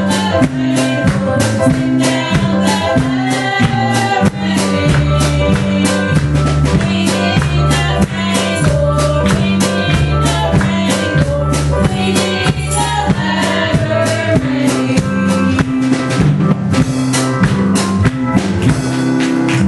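Live church worship song: women singing through microphones over a steady drum-kit beat, bass notes and electric keyboard, amplified through the room's PA speakers.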